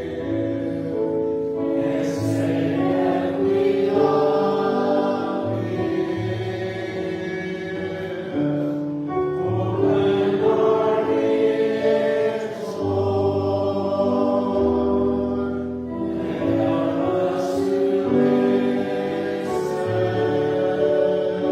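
A choir singing sacred music in held chords, with several voices sounding together throughout.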